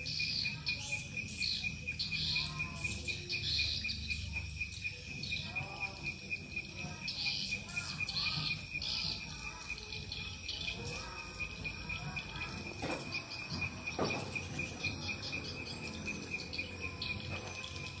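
Swiftlet calls, repeated chirps and twitters, over a steady fast-pulsing high trill. Two soft knocks come a little past the middle.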